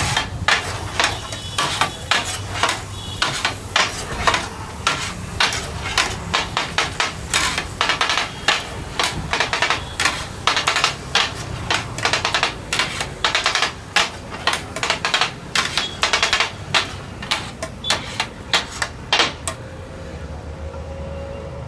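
Two metal spatula blades chopping and scraping a pile of vegetables, egg and meat on a hot flat metal griddle, with rapid, irregular metal-on-metal clattering, several strikes a second. The clattering stops about two seconds before the end.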